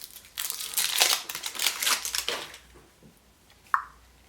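Foil wrapper of a chocolate surprise egg crinkling and tearing as it is unwrapped, for about two seconds. A brief high tone sounds near the end.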